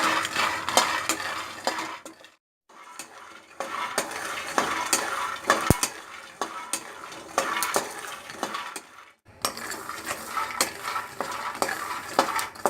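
Peanuts being dry-roasted in a pan and stirred with a spoon: dense clicking and rattling of the nuts and the spoon against the pan over a light hiss, broken twice by a brief silence.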